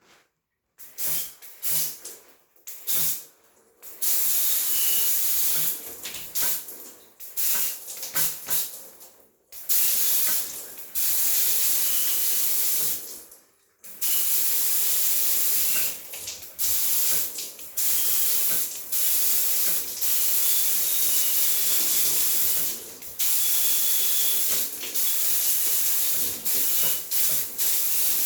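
Hand-operated spray bottle spraying water: a run of short separate squirts in the first few seconds, then longer and longer hissing sprays of several seconds each, the last one nearly unbroken.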